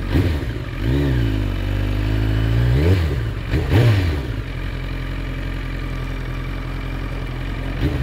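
Sport motorcycle engine revving as the bike pulls away. The pitch rises and falls three times in the first four seconds, then the engine runs steadily at low revs.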